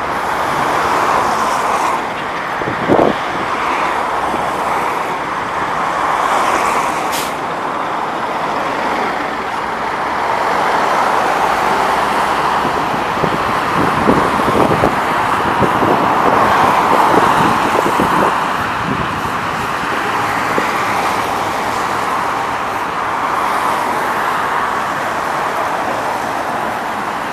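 Scania OmniLink city bus pulling away from a stop amid steady road traffic, with a brief thump about three seconds in.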